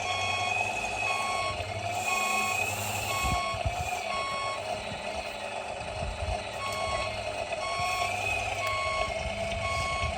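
Reversing alarm on an RC model construction vehicle, beeping about once a second with a short pause near the middle. Under it runs the steady, wavering whine of the model's motor.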